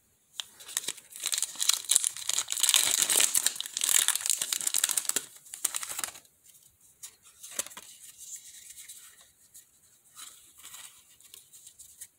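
Foil wrapper of a Pokémon trading card booster pack crinkling loudly as it is torn open, for about five seconds. After that come quieter rustles and soft clicks as the cards are slid out and handled.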